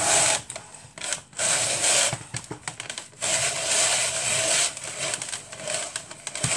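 Press-operated food chopper chopping potatoes, run in repeated bursts of about a second each as it is pressed down again and again.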